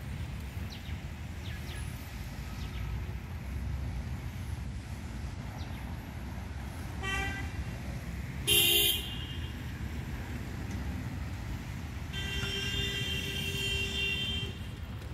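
City street traffic running with car horns honking: a short toot about seven seconds in, a loud, brief blast a second later, and a longer held horn near the end.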